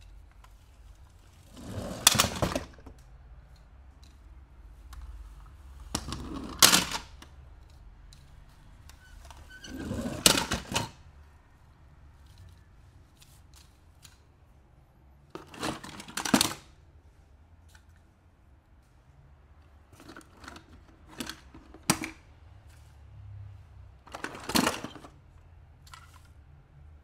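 Plastic toy cars and a toy figure on a skateboard being handled and pushed across artificial grass. About five short rustling clatters come several seconds apart, with a few lighter clicks in between.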